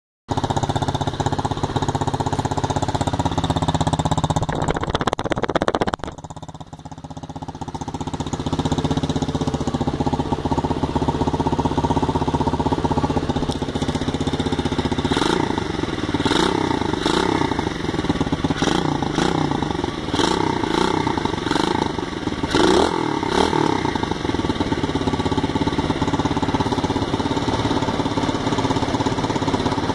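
SSR 125cc pit bike's single-cylinder four-stroke engine running on a freshly cleaned carburettor and new spark plug. The revs sag low about six seconds in and pick back up. From the middle on the throttle is blipped again and again, the pitch rising and falling with each blip.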